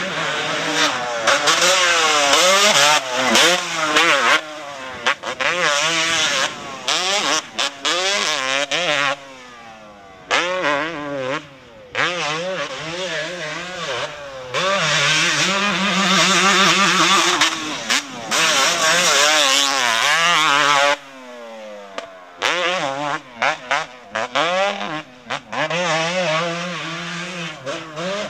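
Motocross dirt bike engine revving hard on the track: the pitch climbs again and again through the gears, then drops sharply each time the throttle is chopped, with a few short spells of quieter running between.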